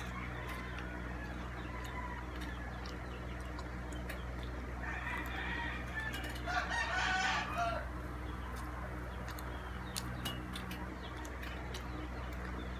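A rooster crowing in the background about halfway through, over a steady low hum, with scattered small clicks.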